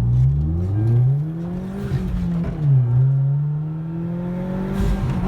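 Hyundai Genesis Coupe's turbocharged engine accelerating hard through the gears: the engine note climbs, falls sharply at a gear change about two and a half seconds in, then climbs again and holds.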